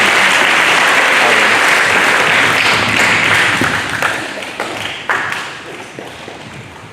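Audience applauding, dense for about three seconds, then thinning to a few scattered claps and dying away.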